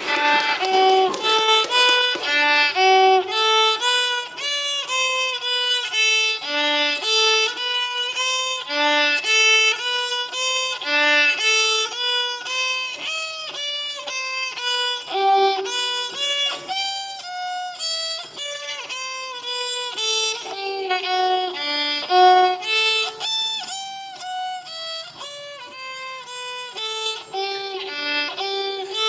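Violin music: a melody of short, quick notes that runs without a break, with almost no bass beneath it.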